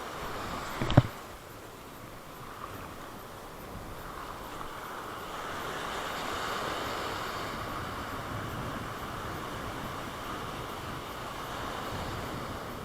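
Sea surf and wind noise on the microphone, swelling a little midway, with one sharp knock about a second in.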